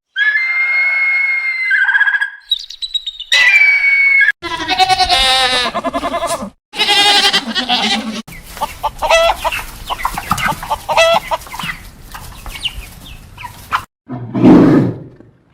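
A run of short bird and poultry calls cut one after another: whistled calls, then crowing and clucking from chickens and a rooster, then many short chirps. A louder, lower animal call starts near the end.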